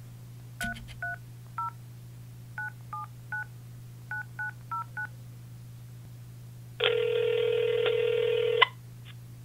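Phone keypad dialing tones: ten short two-tone beeps in groups of three, three and four as a phone number is dialed. About two seconds later a single steady ringing tone of just under two seconds sounds as the call rings through, ending with a click. A faint steady hum runs underneath.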